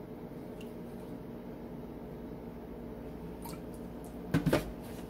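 A steady low hum, with a few light clicks and then a quick cluster of sharp knocks about four seconds in as a plastic measuring spoon is tipped and tapped against the mixing bowl to empty olive oil into it.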